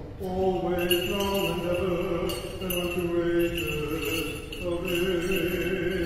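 Choir singing Orthodox liturgical chant: held chords over a steady low drone note, moving to a new chord every second or so.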